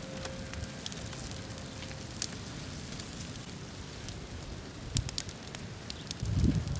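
An open fire of dry palm fronds and grass burning with a steady hiss and scattered sharp crackles and pops. A low rumble rises near the end.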